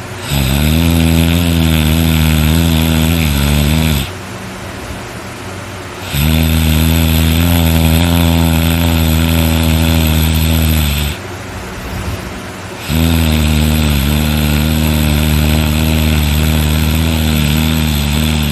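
A person snoring very loudly: three long, low-pitched snores of about four to five seconds each, with quieter breathing in the short gaps between.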